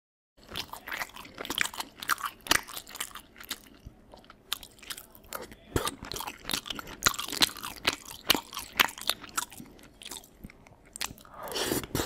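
A person chewing crunchy food close to the microphone, with irregular loud crunches two or three a second.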